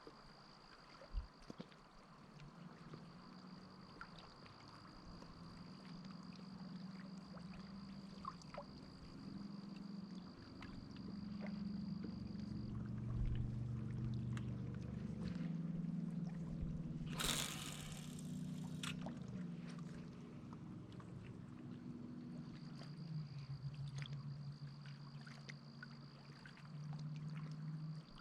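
A motorboat engine drones at a distance across the water, its pitch shifting slowly, under a thin steady high-pitched insect tone. A short rush of water-like noise comes about two-thirds of the way through.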